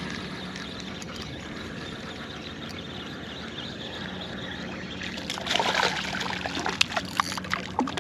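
Water trickling and lapping at a kayak. From about five seconds in it grows louder, with splashing and sharp knocks.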